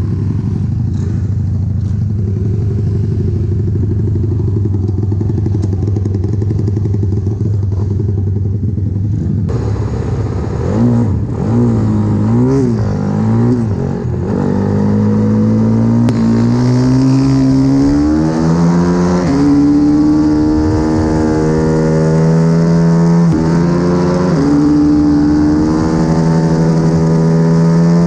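CW 140 pit bike's single-cylinder four-stroke engine ticking over at low revs, then blipped a few times and run up through the gears. Its pitch climbs in steps and drops back at each gear change.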